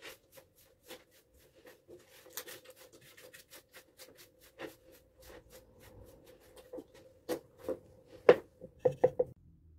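Quick back-and-forth strokes of a small hand brush or sanding block rubbed over a rough wooden slab table top, about three strokes a second. Near the end the strokes give way to a few louder knocks.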